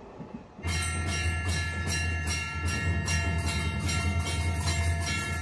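Sound effect of a moving train, starting suddenly a little over half a second in: a steady low rumble with a rhythmic clatter of about four beats a second and high ringing tones above it.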